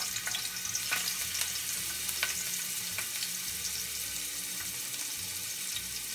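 Crushed garlic frying in hot olive oil: a steady sizzle with a few small crackling pops.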